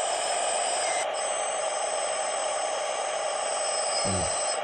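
Truck crane's stabilizing legs (outriggers) extending, a steady mechanical whirring with a thin high whine, and a short low rumble about four seconds in.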